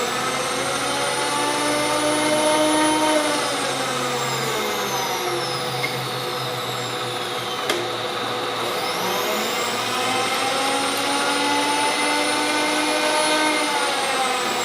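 Bridgeport milling machine's X-axis table power feed motor whining as it drives the table at rapid traverse: the pitch rises as it winds up, holds, then falls away about four to six seconds in. After a sharp click just past halfway, it winds up again and runs until it slows near the end.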